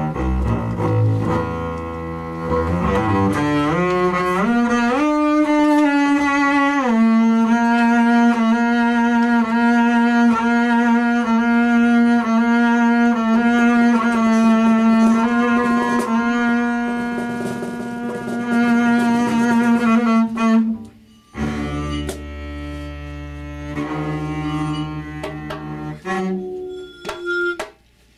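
Double bass bowed arco in free improvisation. Low notes glide upward in pitch over the first few seconds, then one long note is held for about thirteen seconds and breaks off about three-quarters of the way through. Shorter, lower bowed notes follow, thinning out near the end.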